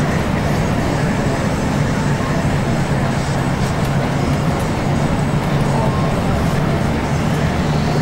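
Bus engine running and tyres on the road, heard from inside the bus cabin as a steady low drone.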